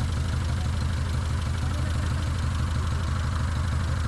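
A motor vehicle's engine idling steadily, a low even rumble with no change in speed.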